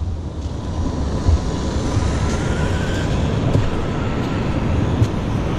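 RC off-road truck driving across sand, heard from a camera mounted on it: a steady low rumble of wind and tyres, with a faint motor whine that rises in pitch about two seconds in.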